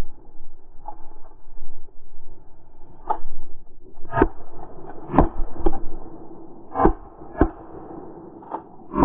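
Footsteps and gear knocks of a hunter walking along a grassy track with a shotgun: a series of sharp knocks at irregular intervals of about half a second to a second, starting about three seconds in, over a steady low rumble.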